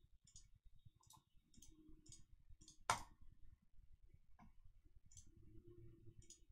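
Faint computer mouse clicks while operating software, with one sharper, louder click about three seconds in.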